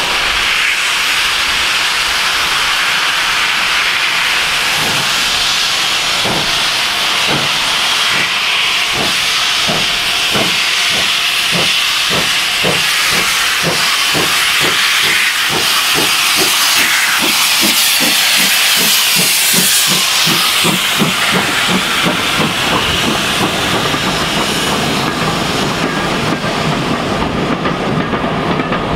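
GWR 4-6-0 steam locomotive starting a train, with a loud hiss of steam from its open cylinder drain cocks. Its exhaust beats come faster and faster as it gathers speed, then fade near the end as the coaches roll past.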